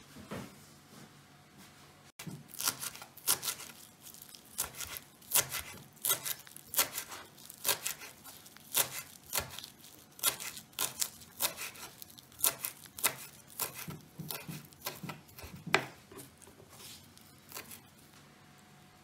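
Kitchen knife chopping fresh parsley on a wooden cutting board: sharp, irregular knocks of the blade on the board, two or three a second. They begin a couple of seconds in and thin out near the end.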